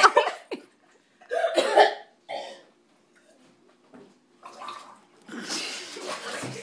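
Coughing and sputtering from a girl's throat irritated by ground cinnamon inhaled during the cinnamon challenge: several separate bursts, with a quiet gap in the middle.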